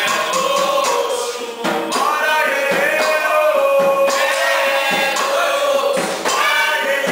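Music: a group of voices singing together over percussion strikes.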